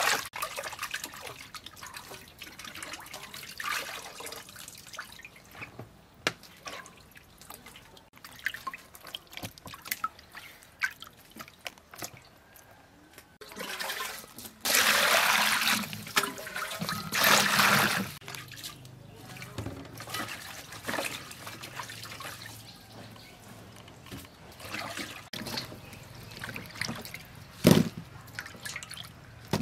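Water sloshing and trickling in a metal basin as a raw whole chicken and then fresh herbs are washed by hand. Two louder rushes of poured water come a little past the middle, with small clinks and knocks in between.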